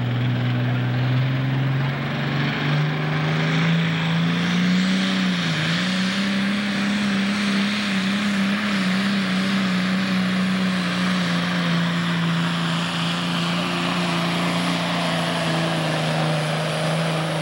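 Diesel engine of a Pro Stock pulling tractor running flat out under load as it drags the weight sled down the track. The engine note climbs about two seconds in, dips briefly about five seconds later, then holds steady.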